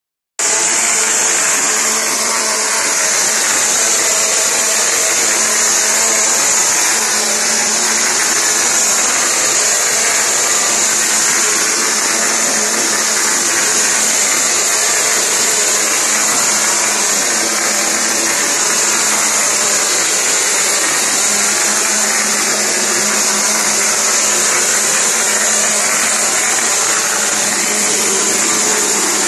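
Cement plaster pump-and-spray machine in use: a loud, steady hiss of compressed air and mortar blasting from the spray gun nozzle onto a brick wall, with a low hum of the machine beneath it.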